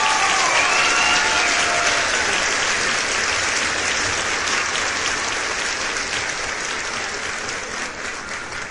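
Crowd clapping, with a few whoops in the first second or two; the applause slowly dies away.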